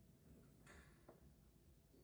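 Near silence: a faint low hum with a couple of faint clicks.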